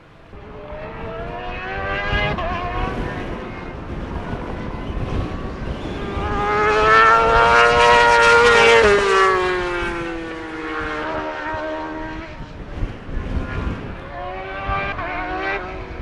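A racing motorcycle's engine approaching and passing at speed, loudest about halfway through, with its note dropping in pitch as it goes by and then fading. Near the end an engine note rises again as a bike comes back into earshot.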